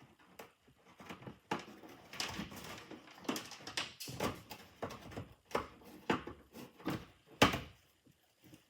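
A utility knife cutting through the plastic dash panel of a Honda Pioneer UTV, a run of uneven rasping cuts with one sharp, louder stroke near the end.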